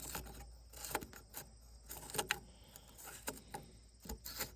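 Scattered light clicks and metallic rattles of hand tools and parts being handled during work on the tractor, with short gaps between them.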